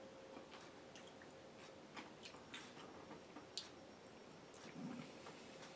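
Quiet eating: faint scattered clicks of a metal spoon against a plastic meal tray, with a sharper click about three and a half seconds in, and soft chewing.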